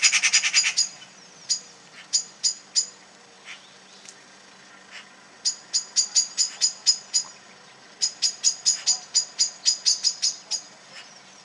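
Small birds giving short, sharp, high alarm calls, some single and some in fast runs of about five a second, with a dense rattling run at the start: the scolding calls of birds mobbing a cat.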